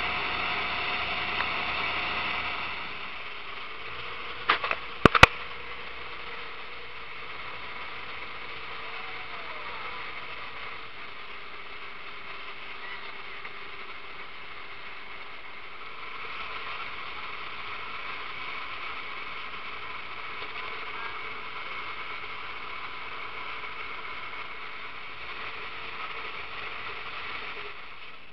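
Boat engine running steadily under way, with the rush of the wake and wind, a little quieter after about three seconds. Two sharp knocks come about five seconds in.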